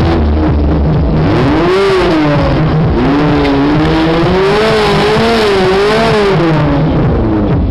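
A vehicle engine revving up and down over and over, its pitch rising and falling repeatedly, with a loud rushing noise.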